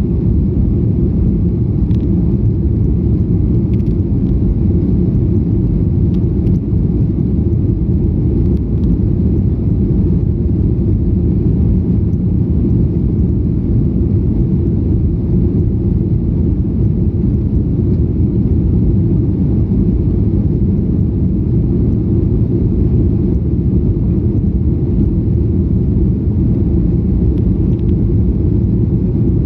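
Jet airliner climbing after takeoff: a steady, loud, low rumble of engines and airflow that stays even throughout.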